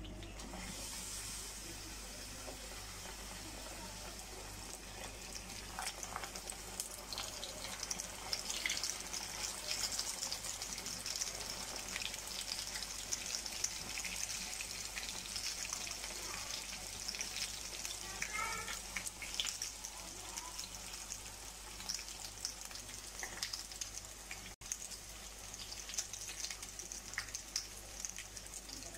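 Samosas deep-frying in hot oil: a steady sizzle full of small crackling pops, getting a little busier a few seconds in.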